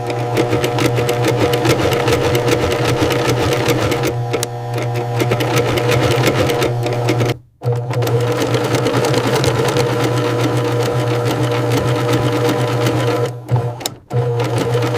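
Sewing machine running fast, a rapid even needle chatter over a steady motor hum, as leather is stitched; it stops briefly about seven and a half seconds in and again near the end.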